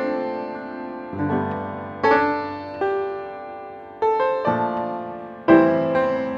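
Background piano music: slow, calm notes and chords struck every second or so and left to ring out.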